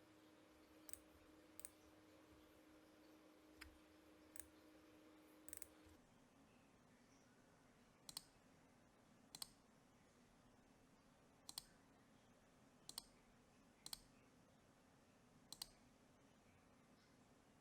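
Computer mouse buttons clicking, about eleven single sharp clicks at uneven intervals, one of them a quick double click. Underneath is near silence, with a faint steady hum that stops about six seconds in.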